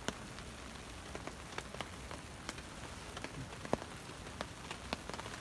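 Sleet falling on a camping tarp: a steady hiss with scattered sharp ticks of single drops striking the tarp.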